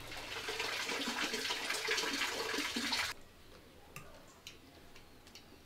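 Water running or splashing, growing louder and cutting off suddenly about three seconds in. Quiet room tone follows, with a few faint clicks.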